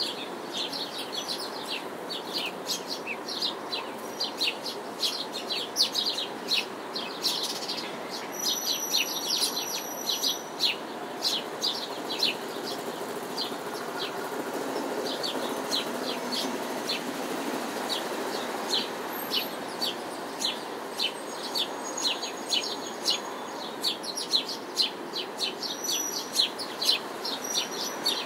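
Small birds chirping in rapid, continual runs of short high notes, over a steady distant city hum.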